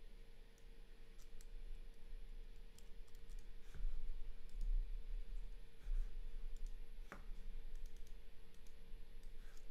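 Light, irregular clicks of a computer mouse and keyboard while text is selected, copied and pasted, with a faint steady hum underneath.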